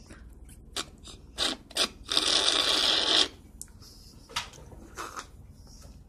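Light plastic clicks and taps from handling a small plastic DIY candy-drink toy and its straw, with one even hissing noise lasting about a second, about two seconds in.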